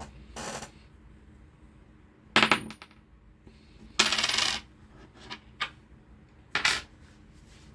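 Ducky One X mechanical keyboard giving four separate short, clattering clacks, a few seconds apart, before steady typing begins.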